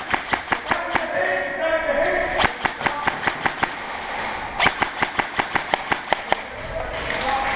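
Airsoft electric rifle firing quick single shots, several a second, in three strings with short pauses between them.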